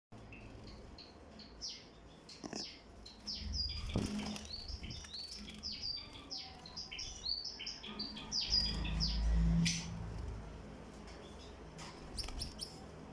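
Small parrots chirping: a rapid run of short, high chirps, each sweeping down in pitch, going on for several seconds. Near the end the chirping stops, and a low rumble and a few faint clicks are heard.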